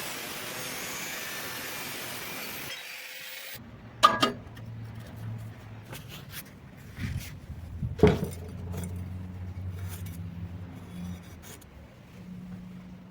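A steady rasping noise of metal being cut or ground for about three seconds, then it stops. Two sharp metal clanks with ringing follow, about four seconds apart, with a few lighter knocks between.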